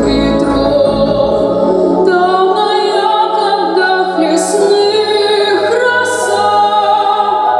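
A woman singing a song with musical accompaniment, held sustained sung notes over steady low accompanying tones, with choir-like backing voices.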